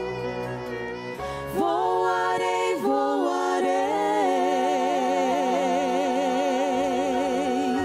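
Gospel hymn closing: a singer rises into a final note and holds it with a wide vibrato for about four seconds, over steady keyboard-like accompaniment.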